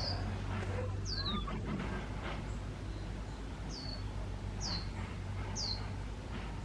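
A white-eye calling: about five thin, high notes, each slurring quickly downward, spaced irregularly over a low steady hum.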